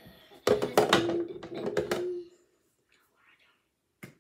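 About half a second in, a short run of sharp clicks and rattles from small skincare bottles and caps being handled, over a brief hum, dying away after about two seconds; one more click near the end.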